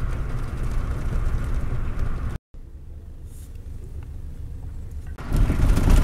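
Steady low rumble of a Scania K400 double-decker coach heard from inside the passenger cabin. The sound breaks off for a moment about two and a half seconds in, returns quieter, and grows louder again shortly before the end.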